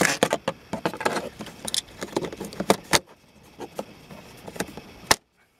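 Small hard objects being handled: a quick run of light clicks and rattles for the first three seconds, sparser clicks after, and one sharp click near the end.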